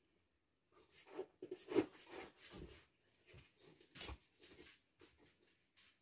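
A puppy moving about and chewing under a table: faint, irregular scratching, rustling and light knocks.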